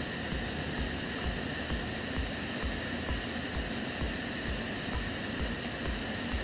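TIG welding arc burning steadily on the hot pass over steel plate: a steady hiss and hum with a low throb repeating two to three times a second.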